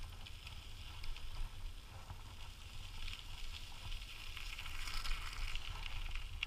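Dog scooter rolling along behind two pulling dogs: a steady low rumble of wheels and wind on the microphone, with a faint crunching hiss over it.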